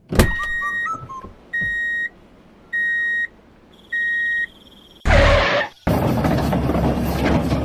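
Four steady electronic beeps, each about half a second long and about a second apart. About five seconds in there is a short loud burst of noise, then a steady mechanical running noise with a low hum.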